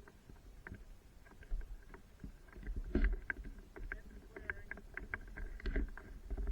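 Small electric mini motorbike ridden over rough ground: a low wind-and-bumping rumble with a faint steady whine, broken by frequent knocks and rattles that get busier and louder about halfway through.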